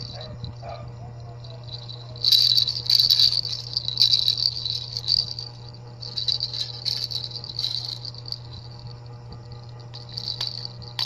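Plastic cage-ball baby rattle being shaken by a baby's hand, its beads rattling in irregular bouts: a few seconds of shaking from about two seconds in, then shorter bouts later on.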